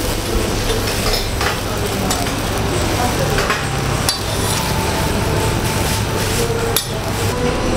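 Tofu blocks sizzling on a flat-top griddle, with a metal spatula scraping and tapping on the griddle a few times.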